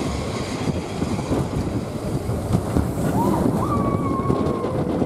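Big Thunder Mountain Railroad mine-train roller coaster running, heard from a seat on board: rumbling track noise and wind rushing over the microphone, with a drawn-out high tone about three seconds in.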